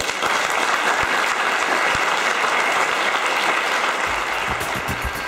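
Audience applauding, starting suddenly and holding steady; rhythmic music comes in near the end.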